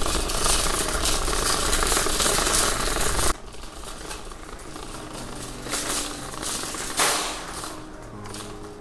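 Metal wire shopping cart rattling loudly as it is pushed over parking-lot asphalt. About three seconds in, it drops abruptly to a quieter rolling rattle.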